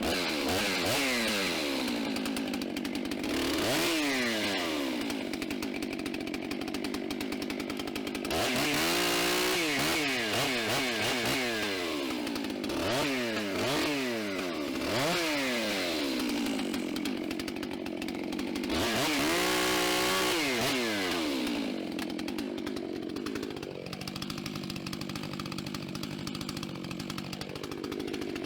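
Chainsaw engine revving up and down many times, then settling to a steady idle for the last several seconds.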